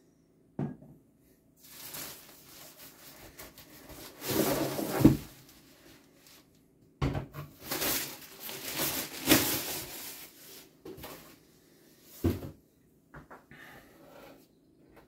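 Plastic bag rustling and crinkling and a cardboard box being handled as a SodaStream Terra is unpacked, in two long stretches, with a few sharp knocks.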